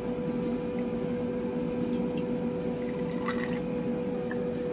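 A shot of blue curaçao being poured into a glass, over a steady low hum.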